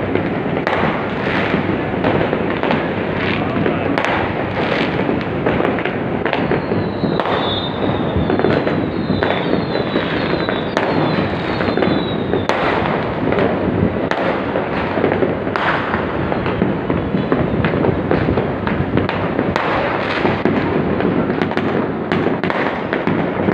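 Dense, continuous crackling and popping of many fireworks and firecrackers going off across a city, with sharper bangs scattered throughout. About a third of the way through comes a run of short, high whistles falling in pitch.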